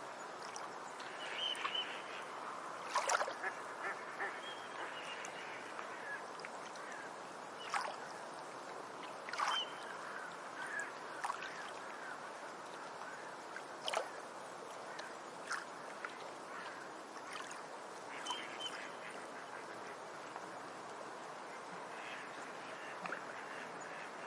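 Beach ambience: a steady wash of surf, with birds calling now and then over it and a few short, sharp calls standing out.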